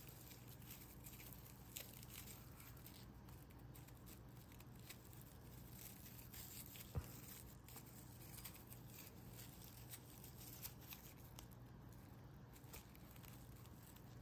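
Faint rustling and crinkling of raffia yarn and the stiff crocheted fabric as a yarn tail is pulled through the stitches with a needle, with scattered small clicks and one sharper click about seven seconds in.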